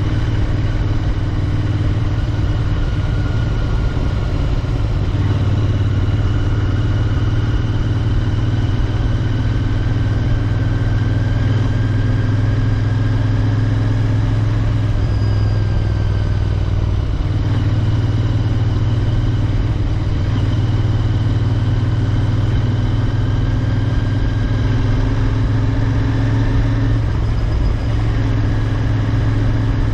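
Royal Enfield Interceptor 650's 648 cc parallel-twin engine running steadily under way, its pitch rising and falling gently with the throttle, with a brief dip about halfway through.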